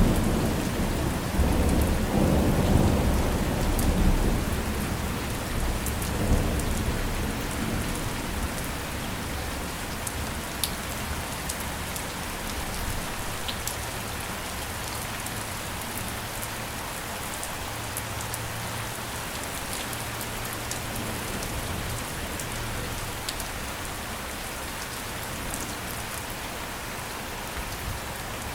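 Steady rain falling, with scattered sharp drop ticks. A low thunder rumble is loudest at the start and dies away over the first several seconds.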